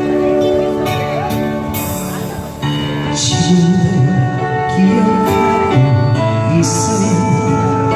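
Live stage music over a PA: sustained keyboard chords with several cymbal hits, the accompaniment to a song just begun.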